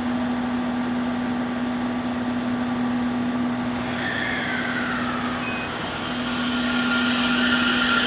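JR Central 313 series electric train at a platform, its steady hum running throughout. About halfway through a hiss sets in, and near the end a rising whine starts as the motors pull the train away.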